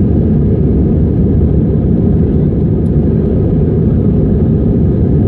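Airbus A320 engines and airflow heard from inside the passenger cabin as a steady, loud low rumble while the aircraft climbs after takeoff.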